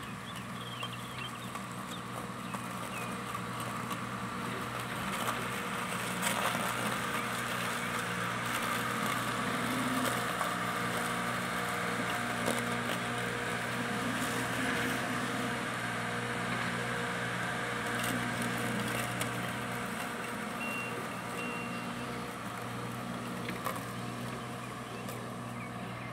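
A loader's engine running steadily in the background, its hum swelling a little now and then.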